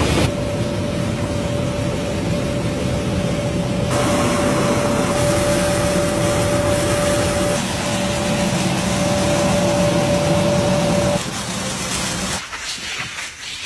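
Vibrating sieve machine shaking wooden matchstick splints across its perforated metal deck: a steady mechanical rattle and hum with one constant tone. It stops abruptly near the end.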